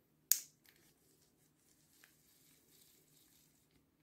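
One sharp click from a disassembled spinning reel being handled, about a third of a second in, then a faint tick or two; otherwise nearly quiet.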